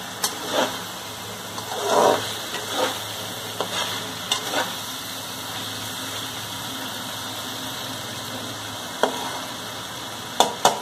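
A cauliflower, potato and meat curry sizzling in a metal wok, with a slotted metal spatula scraping and knocking against the pan as it is stirred. The stirring strokes come in a run over the first few seconds, then only the sizzle is heard until a few more knocks near the end.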